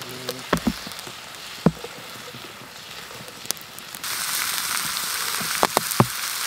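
Onions sizzling in a frying pan over a campfire. The sizzle gets louder about four seconds in, with a few knocks and clinks of the pan and utensils.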